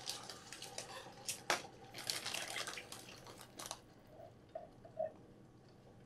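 Beef broth pouring from a plastic measuring jug into an electric skillet of browned ground beef and mushrooms, faint splashing with scattered light crackles. It tails off about four seconds in.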